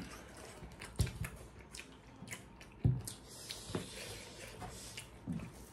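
Two people eating by hand: chewing and mouth noises, with fingers squishing rice and pork curry on a banana leaf. A few brief, sharper smacks stand out, about a second in and again near the three-second mark.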